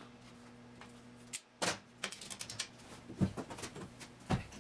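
Irregular sharp clicks and knocks of hand work on car parts, after a steady low hum that cuts off about a second and a half in.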